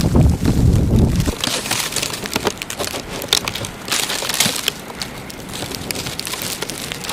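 Wind gusting on the microphone, which stops about a second in. After that comes a run of irregular crunches in snow.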